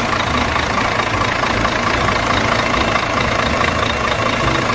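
Steady engine running, a rough uneven low rumble under a dense hiss.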